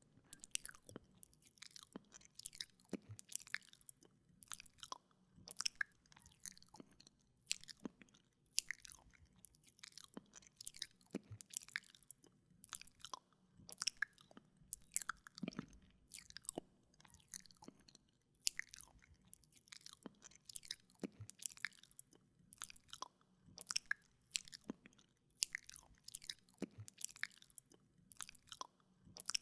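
Close-up wet mouth sounds: irregular lip smacks, tongue clicks and licking noises, a few every second.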